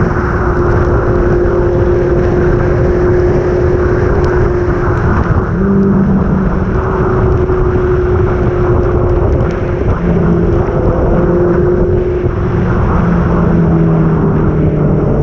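Motorcycle engine running steadily at cruising speed, with a heavy rush of wind over a helmet-mounted camera's microphone; a second, deeper engine tone comes in about six seconds in and again in the last few seconds.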